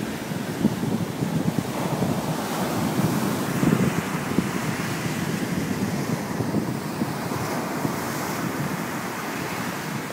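Ocean surf breaking and washing onto the beach in a steady rush, with wind blowing across the microphone.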